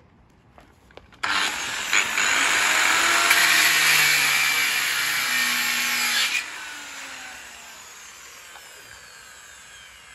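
Corded angle grinder starting up abruptly about a second in and cutting into iron for about five seconds, a loud grinding screech; then it is switched off and its whine winds down, falling in pitch.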